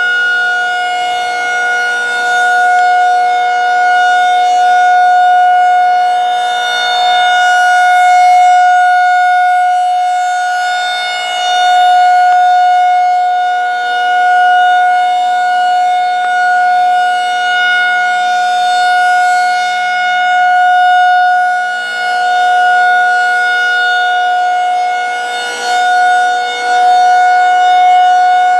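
Federal Signal 2001-SRNB rotating outdoor warning siren sounding a steady full-alert tone at full speed. The pitch holds level while the loudness swells and fades as the horn sweeps around.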